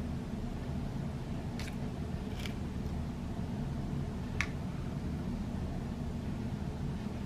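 Small .177 hollow-point lead air-gun pellets clicking as they are set on and picked off the metal pan of a digital pocket scale: three light, sharp clicks, the last the loudest, over a steady low hum.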